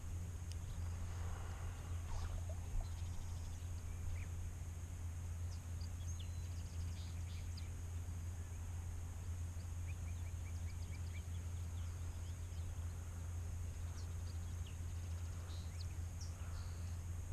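Steady flowing river water, with scattered short bird chirps and a quick trill of notes now and then.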